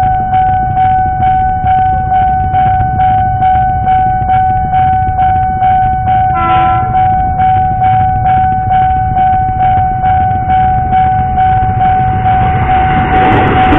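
Railway level-crossing warning bell ringing in quick, even strokes about twice a second over a steady tone. A KRL electric commuter train gives a short horn blast about halfway through, and its approaching rumble grows near the end.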